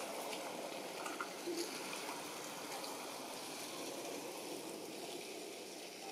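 Steady outdoor background hiss like running or trickling water, with faint ticks scattered through it.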